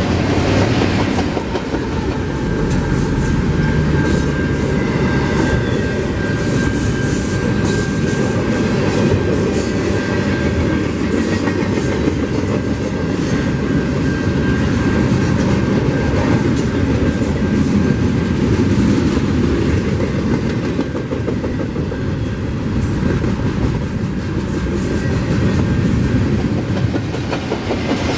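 BNSF double-stack intermodal container train rolling past: a steady rumble of steel wheels on rail with rapid clickety-clack over the rail joints. A faint steady high tone runs through the first half.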